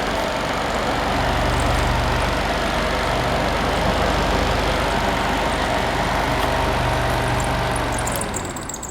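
Box fan driven by a car's electric fan motor, running at high speed off a car battery: a steady whir of rushing air over a low motor hum. It slows and fades near the end.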